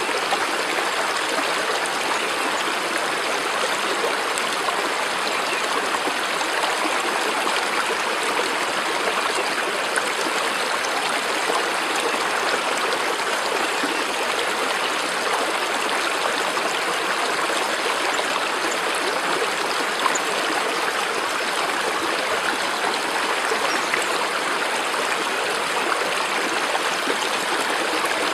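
Flowing stream: a steady, unbroken rush of water.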